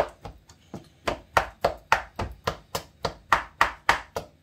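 Kitchen knife repeatedly stabbing down into a raw seasoned pork joint in a stainless steel bowl, making rapid, evenly spaced sharp knocks about three a second. This is holes being punched all over the meat so the jerk seasoning works its way in.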